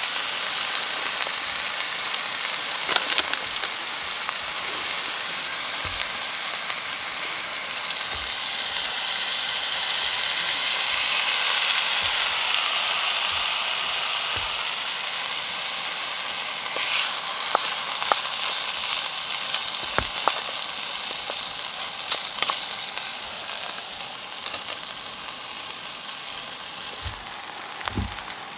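Steak and rice sizzling in a frying pan on a gas camping stove, the sizzle swelling a little midway, with scattered clicks and knocks from the pan.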